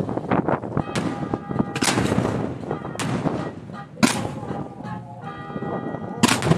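Professional display fireworks fired at close range from mortars on a barge: a series of sharp bangs roughly once a second, the last two close together near the end.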